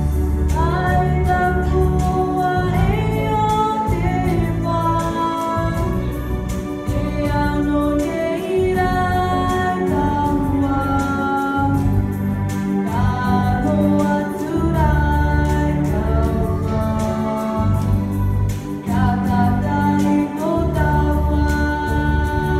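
A woman singing a hymn through a microphone and PA, holding long notes, over sustained electric organ chords in the bass.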